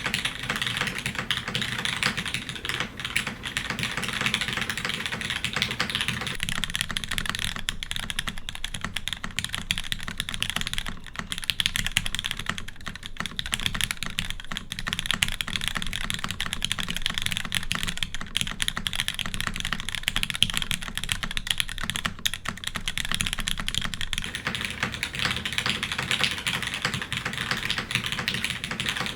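Continuous fast typing on a custom mechanical keyboard with an aluminium plate, lubed Cherry MX Black linear switches and GMK keycaps: a dense, steady stream of key clacks.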